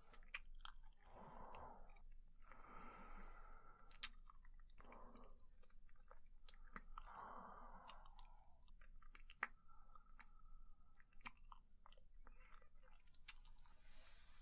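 Faint close-miked kissing sounds: soft wet lip smacks and mouth clicks, with breathy exhales in between.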